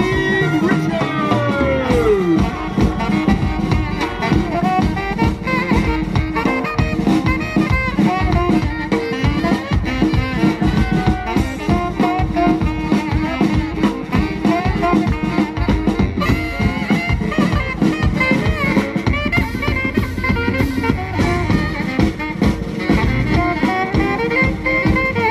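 Live swing big band playing an instrumental passage: brass and saxophones over a drum kit keeping a steady swing beat, with a long downward pitch slide in the first couple of seconds.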